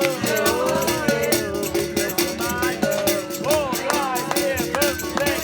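Live amateur group music: held instrument notes over a quick rattling percussion, with voices.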